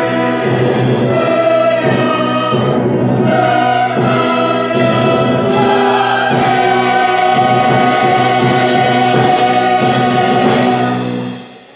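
Church choir singing with an orchestra of strings and brass, moving through the closing 'hallelujah' phrase of a hymn to a long held final chord. The chord cuts off about a second before the end and dies away in the room's reverberation.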